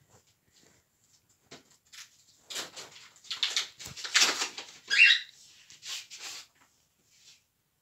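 Paper rustling and tearing as an envelope is torn open and a greeting card pulled out and handled: a run of short scratchy bursts, loudest about four to five seconds in.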